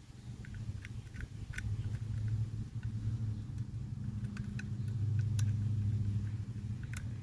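A low engine-like rumble with a steady hum that swells twice, with scattered light clicks and clinks.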